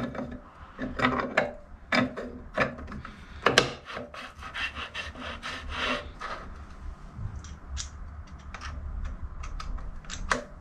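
Metal parts on top of a Bridgeport milling head's belt housing scraping and clicking as they are worked by hand: a run of short rasping strokes in the first few seconds, a denser rasp about five seconds in, then lighter scattered ticks.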